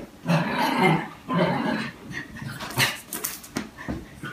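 Small dog vocalising in several short bursts while play-fighting with a cat, with a few sharp knocks from the scuffle about halfway through.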